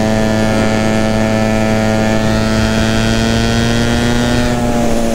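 Honda motorcycle engine running at steady revs, its note holding even and dipping slightly near the end.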